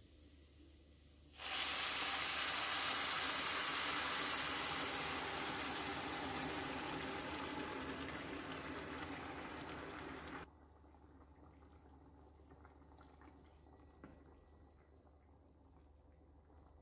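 Water poured in a steady stream from a glass jug into a wide pan of fried meat and bulgur, splashing onto the mixture. It starts suddenly about a second and a half in, fades a little, and stops abruptly after about nine seconds.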